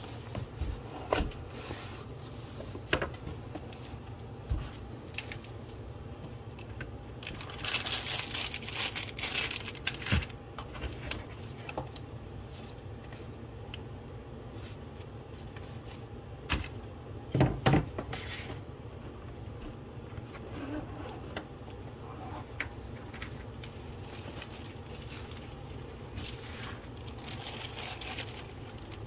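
Hands unpacking a cardboard pistol box: scattered scrapes, taps and knocks of cardboard and contents, a longer stretch of rustling about eight seconds in, and two louder knocks a little past halfway. Near the end, a thin plastic bag crinkles.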